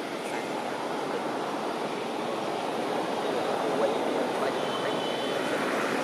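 Steady rushing background noise that swells slowly louder, with a faint thin high whistle for about a second near the end.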